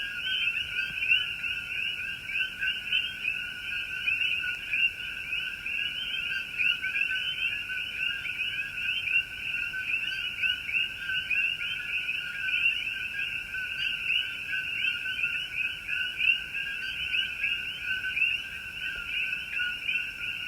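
A chorus of many frogs calling at once: countless short, high-pitched calls overlapping without a break at a steady level.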